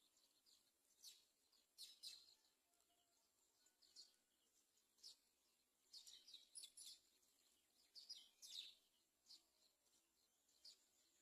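Faint, short, high-pitched bird chirps at irregular intervals, some coming in quick clusters of two or three.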